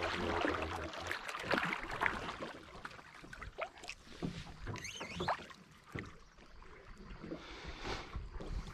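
Small splashes and lapping of water around a wooden fishing boat, with scattered knocks and rustles as a hook longline is handled and hauled in by hand over the gunwale.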